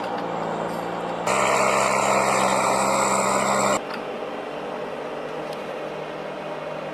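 A heavy forestry machine's engine running steadily, with sudden changes in loudness as the clips cut; it is much louder and harsher from about a second in until nearly four seconds in.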